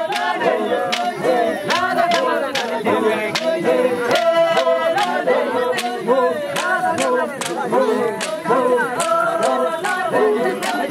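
A group of Il Chamus dancers singing together unaccompanied, many voices layered in a traditional song. A sharp beat, such as a clap or stamp, comes about twice a second.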